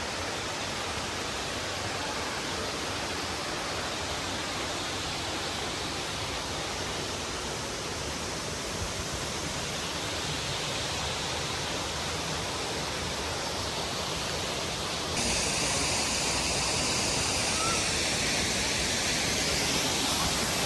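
Waterfall: a steady rush of falling water, which abruptly grows louder about three-quarters of the way through.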